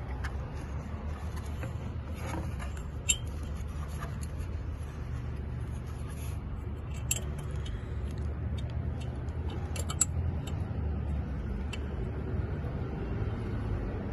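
Sharp metallic clinks of hand tools and parts being handled during EGR valve reassembly, loudest about three, seven and ten seconds in, over a steady low hum.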